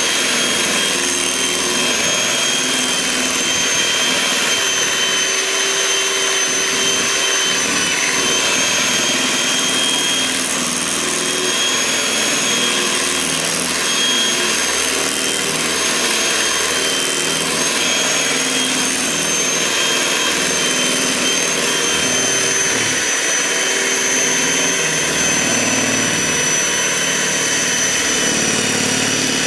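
Electric kitchen mixer running steadily at speed, with a high, slightly wavering motor whine.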